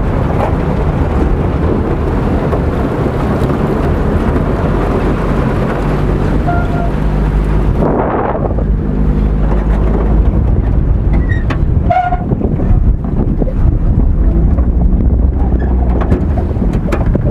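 Boat motor running steadily while the hull pushes and scrapes through broken spring ice and slush. From about halfway the motor's hum is plainer, with scattered knocks of ice against the hull.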